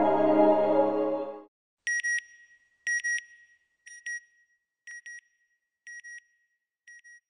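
Synth music ends about a second and a half in. Then a pair of short, high electronic beeps sounds once a second, six times, fading away: the closing logo sting.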